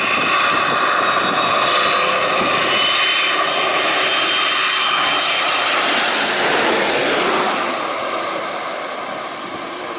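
Jet airliner passing low overhead: a whine from the jet engines over a rushing noise that swells to its loudest about six to seven seconds in, then fades away.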